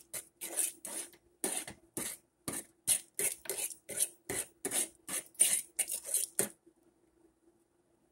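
A utensil stirring rice and liquid in a metal saucepan, scraping against the pot in quick, regular strokes, about two or three a second, until they stop about six and a half seconds in.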